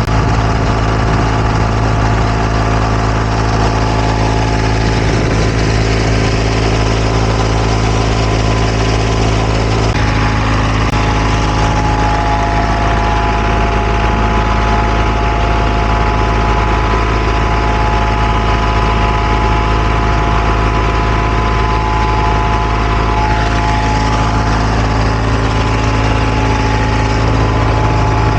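Heavy diesel engine of asphalt paving machinery running steadily at constant speed. About ten seconds in, a higher steady whine of several tones joins the engine.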